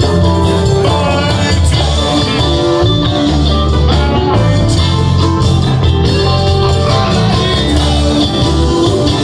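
Live rock band playing over a PA, with electric guitar, bass and singing, heard from within the audience.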